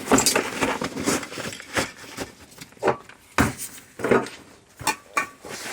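Irregular knocks and clatter of tools and gear being handled and set down on a table, a few sharp strikes a second or so apart.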